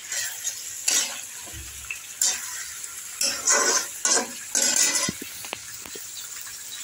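Metal spatula stirring and scraping raw chicken pieces around a kadai of hot oil: about six short scrapes in the first five seconds, then a few light ticks, over a faint steady sizzle of frying.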